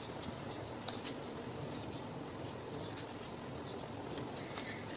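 Faint rustling and crinkling of stiff black paper being folded and creased by hand, with a few small clicks.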